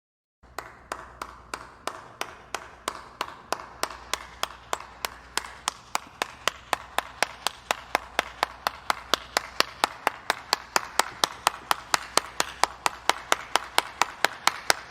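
Sharp, evenly spaced claps, about four a second, from about half a second in until the end, over a faint low hum.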